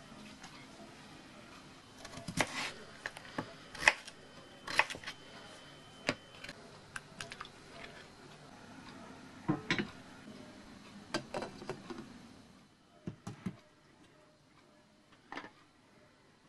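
Irregular sharp clicks and knocks of kitchen prep as potatoes are cut and handled around a steel saucepan. The clatter is busiest in the first two-thirds, then thins to a few light knocks.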